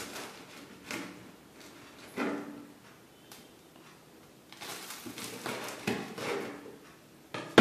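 Kitchen knife slicing through a crisp deep-fried spring roll on a plastic cutting board: a series of short crackling crunches as the blade cuts through the fried wrapper and meets the board, with a sharp loud knock near the end.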